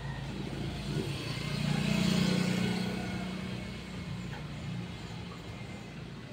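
A motor vehicle passing by: its engine noise swells over about a second, peaks, then fades away.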